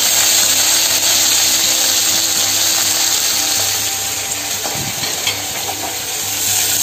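Cumin seeds and curry leaves sizzling in hot coconut oil in a steel kadai: a tempering (tadka) being fried, a steady loud crackling hiss.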